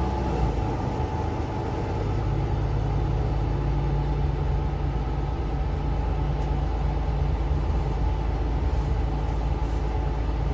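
Mercedes-Benz Citaro C2 LE city bus heard from inside the cabin while driving: a steady low engine drone with road and drivetrain noise.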